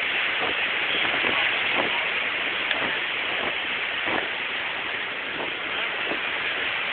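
Steady rushing hiss of ocean surf washing on a beach.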